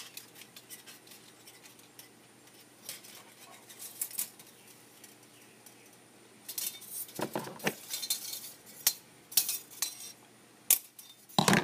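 Thin aluminium strip cut from a soda can crinkling and clicking as it is handled and snipped with household scissors: scattered light metallic clicks, sparse at first and busier in the second half, with a couple of firmer knocks near the end.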